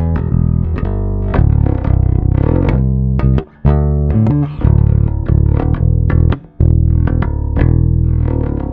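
Dyna KUSABI-II five-string electric bass playing a plucked line of notes, with two short breaks, the last note starting to die away near the end.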